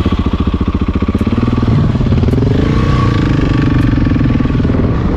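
Motorcycle engine pulling away under acceleration. Its pitch rises about halfway through and then holds steady at a loud, even run.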